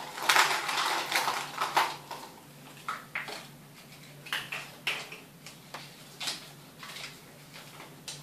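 Plastic draw balls clattering against each other and the glass bowl as a hand rummages through them for about two seconds, then a string of separate clicks and rustles as one capsule is opened and a paper slip is pulled out.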